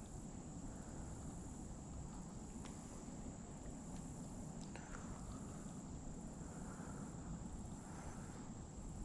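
Insects trilling steadily on one high pitch over a low outdoor rumble, with a couple of faint clicks near the middle.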